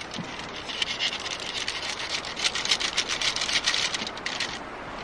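Filleting knife working through a brown trout on aluminium foil: irregular crinkling and scraping ticks over a steady hiss, easing off near the end.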